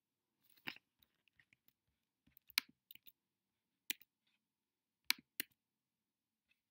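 A handful of sharp, irregular clicks from a computer keyboard and mouse, with near silence between them.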